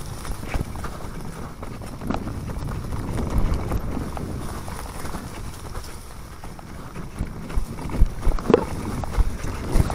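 Mountain bike riding down a leaf-covered dirt trail: a steady rumble of tyres on the ground, with wind on the handlebar camera. The bike knocks and rattles over bumps, once about two seconds in and several times near the end.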